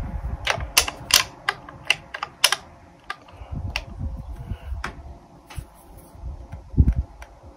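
Sharp metallic clicks from a hand tool tightening the mounting screw of a bolt-on e-bike stand under the frame, coming several a second at first and then more sparsely. A dull thump sounds near the end.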